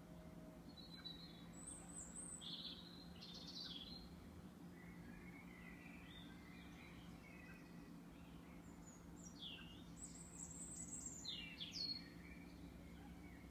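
Faint bird calls and chirps in two short clusters, a couple of seconds in and again about ten seconds in, some as quick downward-sweeping notes, over a steady low hum.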